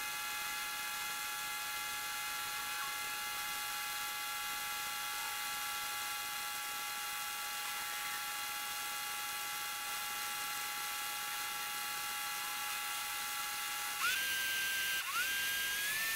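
Hummer H1 central tire inflation system pumping air into all four flat tires, heard as a steady whine. About two seconds before the end, the whine jumps higher and gets louder. It breaks off briefly, then comes back and climbs slightly.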